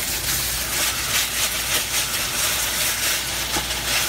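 Rice and sauce sizzling in a frying pan, stirred and scraped with a spatula.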